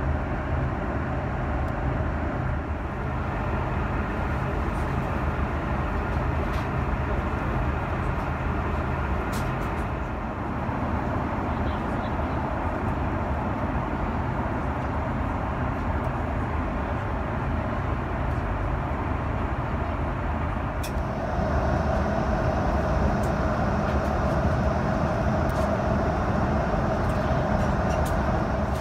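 Steady in-flight cabin noise of an Airbus A330-300: a constant rumble and hiss of the engines and airflow, growing a little louder about two-thirds of the way through, with a few faint clicks.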